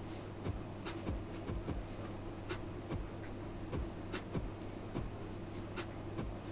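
Yu-Gi-Oh trading cards being handled: irregular light clicks and taps, a few a second, over a steady low electrical hum.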